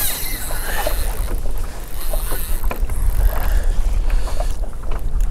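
Wind buffeting the microphone in a strong low rumble, with water slapping and splashing against the hull of a Hobie Lynx kayak.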